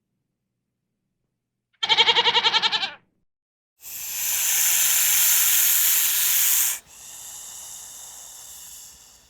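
A single quavering bleat from a farm animal, lasting about a second, then after a short pause a loud breathy hiss for about three seconds that drops suddenly to a softer hiss with faint whistling tones.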